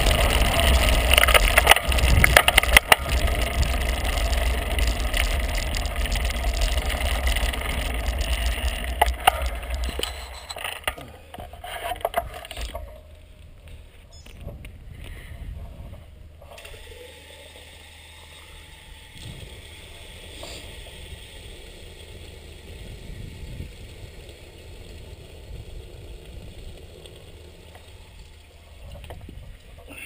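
Rumble and rattle of a bicycle rolling over stone-paved street, picked up through the bike-mounted camera. The noise dies away between about ten and thirteen seconds in as the bike comes to a stop, leaving quiet street background.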